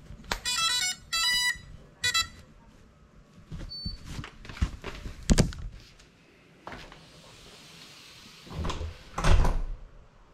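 A quick run of short electronic beeps stepping up and down in pitch, in three groups within about two seconds: the start-up tones an FPV quadcopter's motors play when its battery is plugged in. Scattered knocks follow, ending in a louder pair of thuds near the end.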